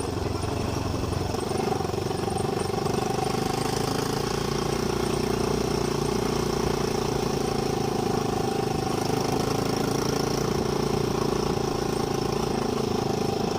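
A steady engine-like hum at an unchanging pitch and level.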